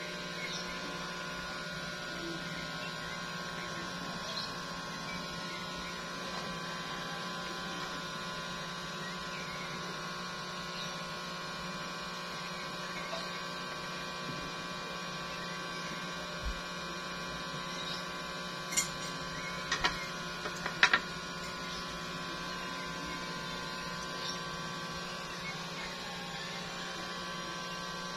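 Steady electrical hum made of several fixed tones, with a few brief sharp clicks about two-thirds of the way through.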